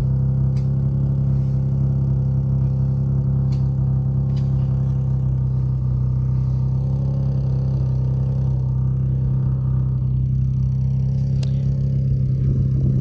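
Motor vehicle engine running at a steady, unchanging speed, with a few faint clicks.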